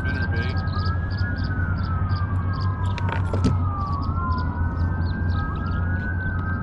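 Emergency-vehicle siren wailing, its pitch sweeping slowly up and then down about every four seconds, over a steady low hum.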